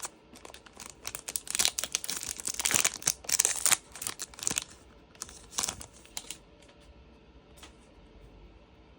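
A trading card pack's wrapper being torn open and crinkled in the hands, a dense run of crackling that dies away about six seconds in, leaving a few faint clicks.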